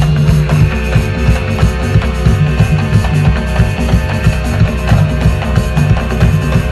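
Live music in a Bakisimba rhythm, the Buganda drumming pattern from Uganda: fast, dense drum strokes over a heavy pulsing bass line, with steady held tones above.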